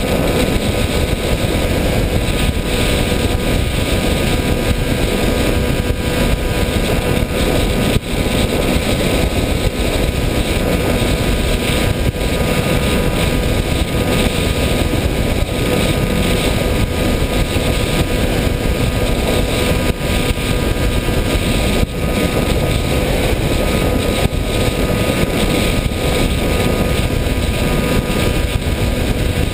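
Steady drone of an FPV model aircraft's motor and propeller, recorded on board: an even whine of a few held tones over a loud, constant rush of air noise.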